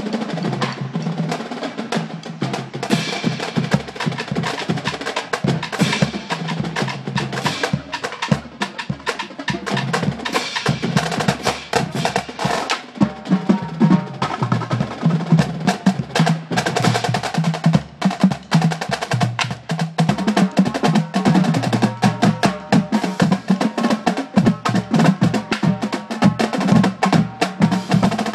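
Marching drumline warming up: snare drums, tenor drums and bass drums playing a fast, dense exercise together. The bass drums sound low notes that step between different pitches.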